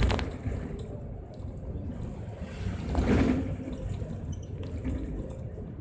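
Mercedes-Benz Citaro city bus under way, heard from inside: a steady low engine and road rumble, with a brief louder swell about three seconds in.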